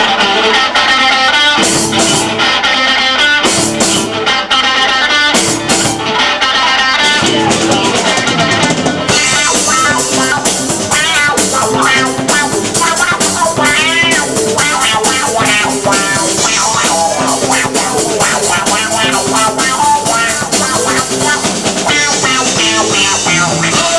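Live rock band playing a song's instrumental intro with guitar and drums: sparse and broken at first, then the full band comes in and the sound fills out about nine seconds in.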